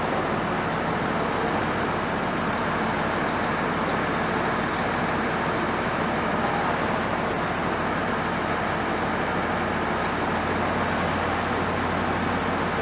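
Steady engine and traffic rumble with a constant low hum, unchanging throughout.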